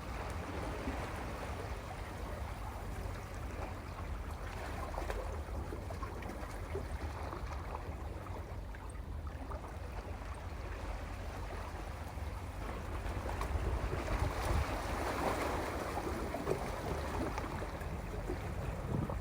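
Sea waves washing over a rocky shore, a continuous rushing wash that swells into a louder surge about two-thirds of the way through, over a deep low rumble.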